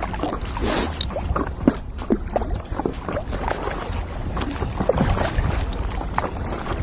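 Water splashing and sloshing around a stand-up paddleboard as the paddle dips in, in short irregular splashes, over a low rumble of wind on the microphone.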